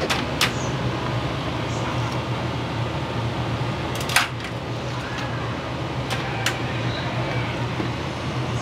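Steady hum of a small restaurant kitchen's ventilation, with a few sharp clinks of cooking utensils, the loudest about four seconds in.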